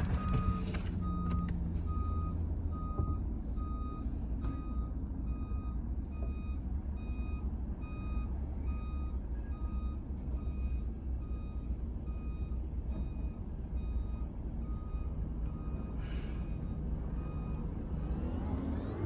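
Semi-trailer truck reversing: its reverse alarm beeps evenly, about once every 0.8 seconds, over the low, steady rumble of the diesel engine. The beeping stops near the end.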